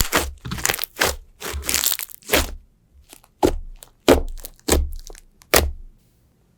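Slime being squeezed and pressed by hand, giving a string of short crunchy crackles, about one or two a second, that stop near the end.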